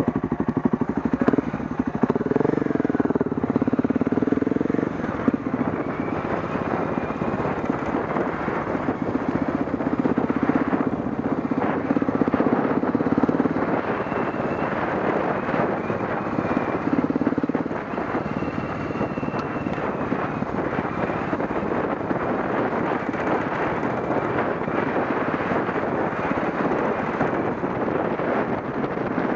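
Off-road motorcycle engine running as the bike rides along a gravel track. Its note rises and falls with the throttle over a steady rushing noise.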